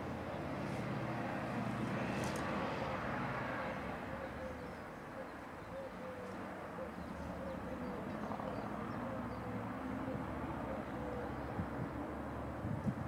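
Steady distant engine drone with a low rumble, easing slightly about a third of the way in and then holding.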